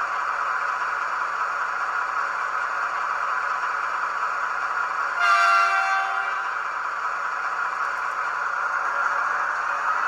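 Sound decoder of a model ÖBB 2016 Hercules diesel locomotive playing its diesel engine sound steadily through the model's small speaker, with one short locomotive horn blast about five seconds in, lasting under a second.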